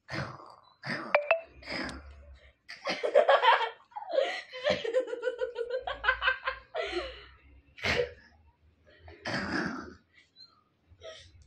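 Human laughter in repeated short bursts, with breathy giggles between them.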